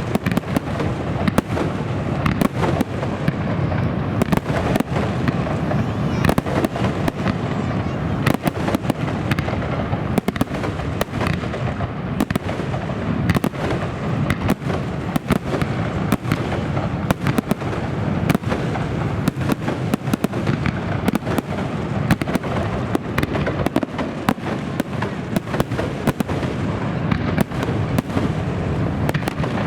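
Aerial fireworks display: a dense, continuous barrage of shell bursts, with many sharp bangs and crackles overlapping one another.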